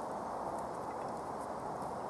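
Small wood campfire crackling, with scattered sharp pops over a steady hiss.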